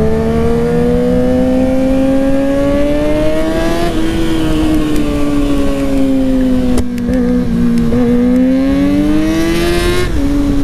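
2019 Kawasaki Ninja ZX-6R's 636 cc inline-four, its stock exhaust can removed, running while the bike is ridden in traffic. The engine note climbs gently for about four seconds and eases back. It rises again, then drops sharply near the end.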